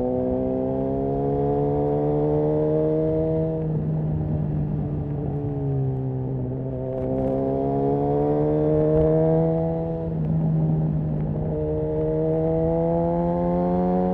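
Suzuki GSX-R 1000's inline-four engine through a Yoshimura R11 full exhaust system under way, its note climbing steadily in pitch as the bike accelerates, falling back twice and climbing again.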